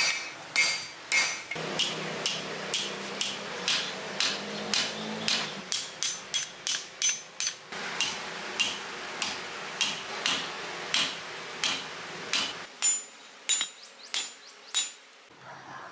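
Hand hammer striking red-hot spring steel on an anvil, forging a sword blade: a steady run of ringing blows, about two a second, that stops about a second before the end.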